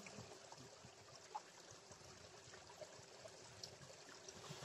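Near silence with the faint, steady flow of a small river.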